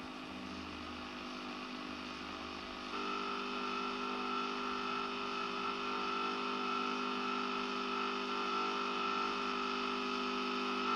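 Faint hiss, then about three seconds in a steady hum of several pitches starts and holds unchanged.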